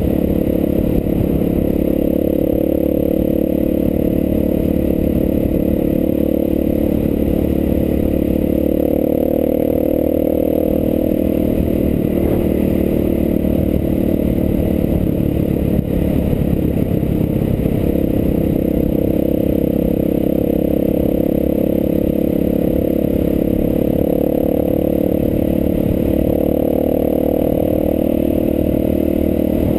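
Enduro motorcycle engine running steadily at cruising speed, with a low rumble from riding over a rough stone-paved road.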